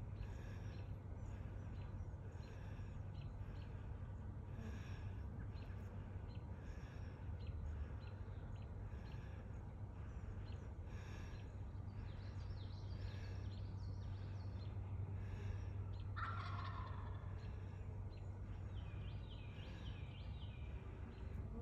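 Turkey gobbling again and again, loudest in a strong falling call about two-thirds of the way through, with smaller birds chirping near the end over a steady low hum.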